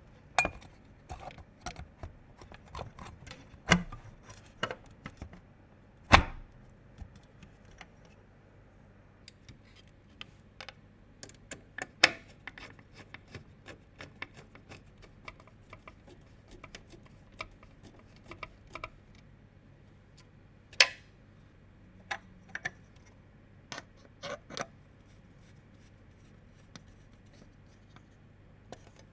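Irregular light clicks, taps and scrapes of computer parts and hardware being handled and fitted by hand during a PC build, with a few sharper knocks, over a faint steady low hum.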